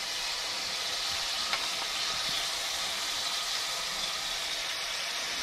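Ground Italian sausage and beef sizzling steadily as it browns in a stainless-steel saucepan, with an occasional light click of a pastry cutter as the meat is broken up.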